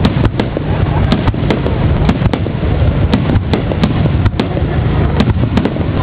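Large aerial fireworks display: a continuous rumble of shell bursts with many sharp bangs and crackles, about three a second, coming irregularly.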